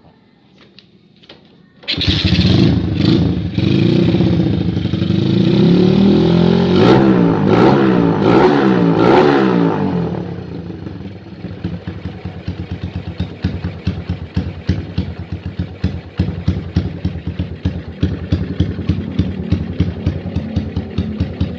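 Honda GL's single-cylinder four-stroke engine starting about two seconds in, revved up and down a few times, then settling to a pulsing idle.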